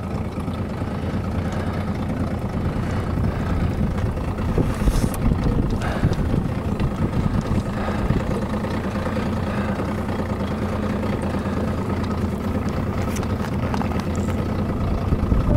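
Boat motor idling with a steady low hum.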